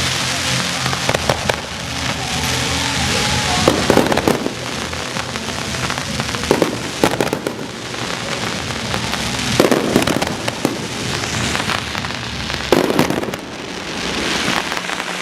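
Aerial fireworks display: a continuous crackle and hiss of bursting shells, broken by sharp bangs every one to three seconds, with a dense cluster around four seconds in and around ten seconds in.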